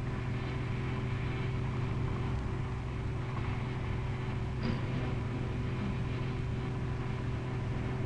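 Diesel engine of a JCB 800 series crawler excavator running steadily, a constant low hum with a faint click near the middle.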